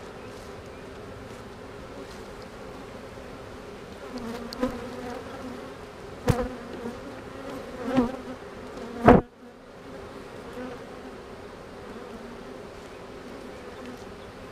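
Honeybee colony buzzing steadily over an open hive, swelling louder around four and eight seconds in. Two sharp knocks cut through it, the louder one about nine seconds in.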